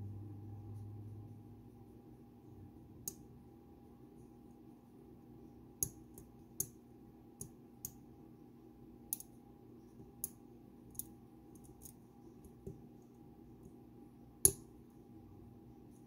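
Sharp, scattered metallic clicks as a hook pick works the pins of a DOM Sigma pin-tumbler cylinder under tension, about a dozen at irregular intervals, the loudest near the end.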